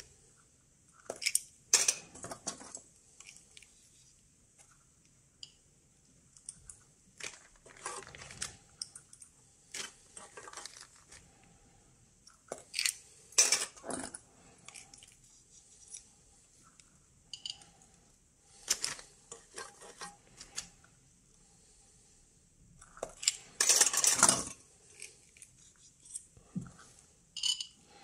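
Irregular clinks of small metal parts and plastic rustling as metal Geiger counter tubes and clip leads are handled, with the longest and loudest rustle near the end.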